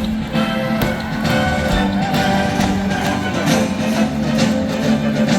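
Loud music with held notes and a steady low line, broken by frequent short, sharp hits.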